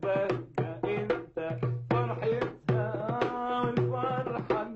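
Darbuka hand-drum strokes beating out a rhythm under a held, wavering melody line, in Arabic tarab style.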